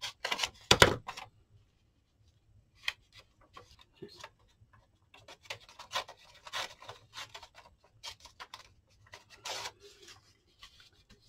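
Scissors snipping through paper in the first second, then soft, scattered paper rustling and sliding as paper pieces are moved about and laid down on a tabletop.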